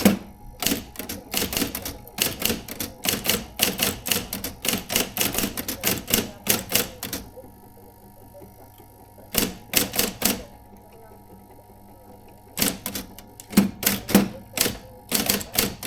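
Adler Junior Electric electric typewriter being typed on: rapid runs of sharp key strikes, a pause of about two seconds, a short burst, another pause, then typing again near the end. A faint steady hum stays underneath in the pauses.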